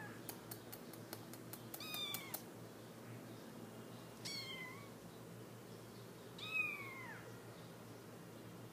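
Three-week-old Himalayan kittens mewing: three thin, high-pitched mews, about two seconds in, about four seconds in, and a louder one near seven seconds in that falls in pitch. A quick run of light clicks sounds in the first couple of seconds.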